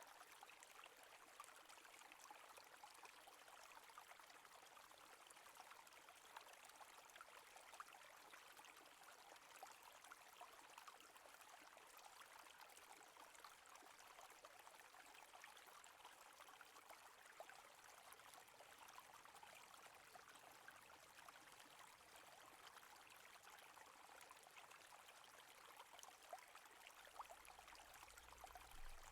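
Very faint, steady running-water sound, like a gentle stream trickling, at a level close to silence.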